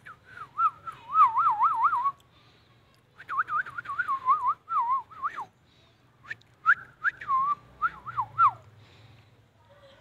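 Indian ringneck parrot whistling: three warbling phrases, each a couple of seconds long, the pitch wavering quickly up and down, with short pauses between.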